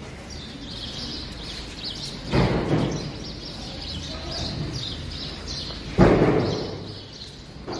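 Two heavy thuds about three and a half seconds apart, the second louder, as full jute sacks are dropped onto a warehouse floor. Small birds chirp throughout.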